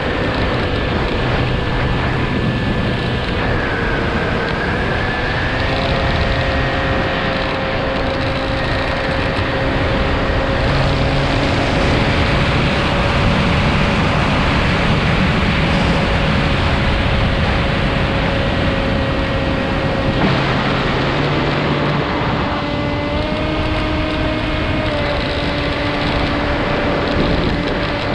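Steady whine of a radio-controlled model aircraft's motor and propeller, heard from a camera on board, over heavy wind rush. The pitch dips briefly about four seconds in and climbs near the end as the throttle changes.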